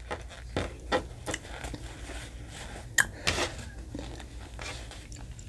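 Close-up eating sounds: a person chewing, with scattered short clicks and smacks, one sharper click about three seconds in.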